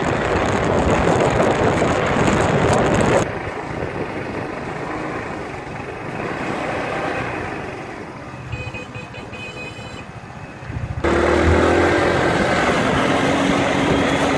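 Motor scooter engine, road noise and wind on the microphone while riding along a road. The sound drops abruptly about three seconds in and comes back louder about eleven seconds in.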